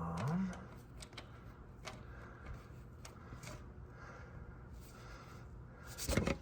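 Light metal clicks and scrapes of an exhaust manifold expander being worked into a small-block Chevy exhaust manifold by hand, with one louder sharp clatter near the end.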